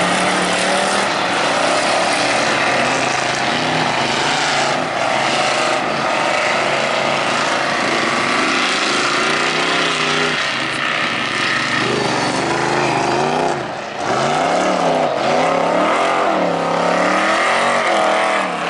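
Dirt-track stock car engine running hard, its pitch rising and falling again and again as it revs and lifts through the corners, with a brief drop in loudness about fourteen seconds in.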